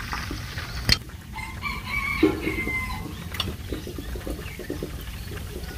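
A rooster crowing: one drawn-out call starting a little over a second in and lasting about two seconds. A sharp click comes just before it.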